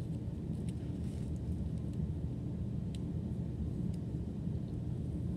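Steady low background rumble with a few faint, light clicks.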